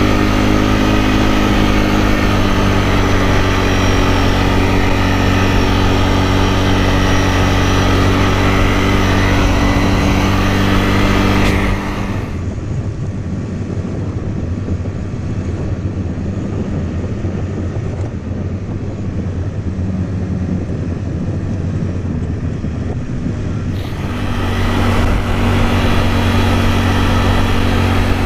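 ATV engine running steadily while riding. About twelve seconds in it gives way to a quieter, rougher rumble without the steady note for about eleven seconds, and then the engine note comes back.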